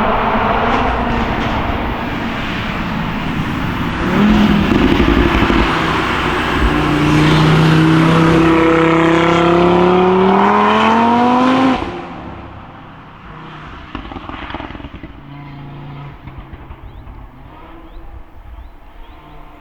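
Audi RS3 8V's turbocharged 2.5-litre five-cylinder engine, remapped and fitted with an aftermarket downpipe and sport cat, accelerating hard with its pitch climbing for several seconds, then cutting off suddenly about twelve seconds in. It carries on more quietly, with a few sharp cracks from the exhaust shortly after the lift-off.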